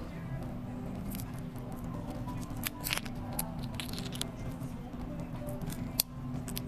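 Shell of a cooked prawn cracking and snapping as it is peeled by hand: a scatter of sharp clicks and crackles, loudest about three seconds in and again near six seconds, over background music.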